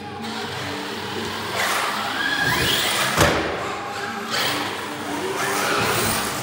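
Electric radio-controlled cars driving, with a motor whine that rises about two seconds in as one accelerates. A hard thump follows just after three seconds, as a car lands or strikes the ramp.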